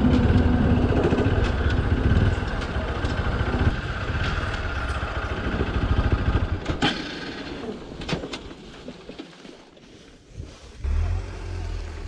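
Motorcycle engine running at low speed with wind noise on the microphone, easing off over the first few seconds. After about seven seconds the engine sound drops away, leaving scattered clicks and a much quieter stretch.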